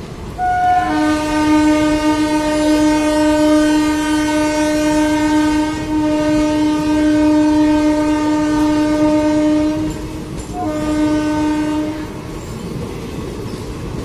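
Train horn sounding one long blast of about nine seconds, starting with a brief higher note, then a short break and a second blast of about a second. Underneath, the rumble and clatter of passenger coaches rolling past runs on throughout.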